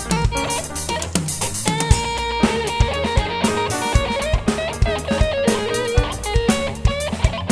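Instrumental band music: a guitar plays a bending melody line over a drum kit keeping a steady beat.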